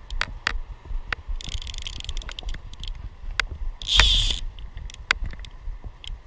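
Fly rod and line being handled and cast: irregular sharp clicks and rubbing of the line in the hand and guides, with a loud short swish about four seconds in as the rod is swung, over a low wind rumble on the microphone.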